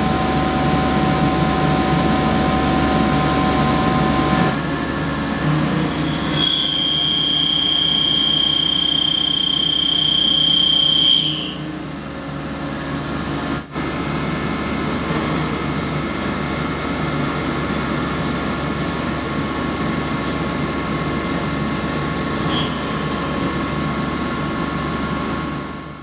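Milling machine cutting metal: steady machine running noise, with a high-pitched cutting whine for about four seconds in the first half. The sound changes abruptly several times.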